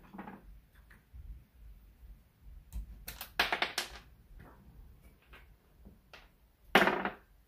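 Small steel screws and hand tools clicking and clattering on a wooden workbench during hand disassembly of a chainsaw. Scattered light clicks, a rattling clatter about three seconds in, and another short clatter near the end.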